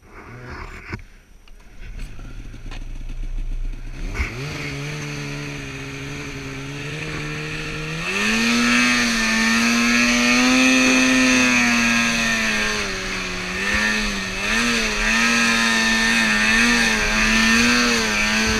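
Mountain snowmobile's two-stroke engine heard from about four seconds in, running low, then revving higher at about eight seconds, its pitch rising and falling with the throttle as the sled pulls through deep powder.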